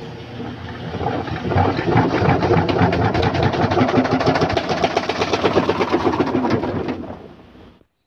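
Whirlpool LSP1080GP top-load washing machine in its spin cycle, the wobbling drum clattering rapidly. The clatter builds over the first couple of seconds, holds steady, then fades near the end. The noise comes from a loose drum: the drum holder was found with loose and missing screws.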